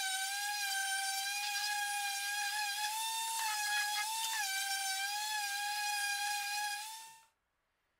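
Electric random orbital sander sanding a wooden panel: a steady high whine that rises as the motor spins up at the start and dips briefly in pitch a couple of times. It stops about seven seconds in.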